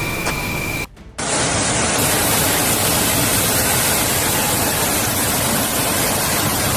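Loud, steady rush of water that starts about a second in, after a brief drop. Before it there is a steady high tone over hiss.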